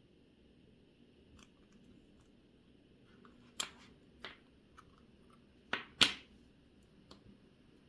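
Light, sharp clicks and taps of watchmaker's tools against a watch's small parts, about five of them spread over several seconds. The loudest are two close together about six seconds in.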